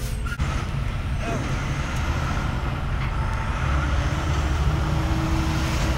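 Steady low rumble of a motor vehicle running nearby, with faint steady tones over it.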